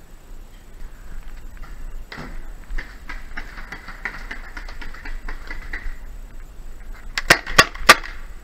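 Three quick, loud shots from a Tippmann TiPX paintball pistol near the end, about a third of a second apart, after several seconds of faint scuffing movement noise.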